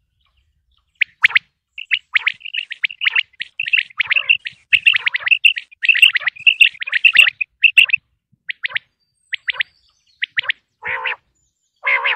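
Common quail calling: short, high chirping notes, packed together for several seconds and then coming more sparsely. Near the end come two longer, harsher calls.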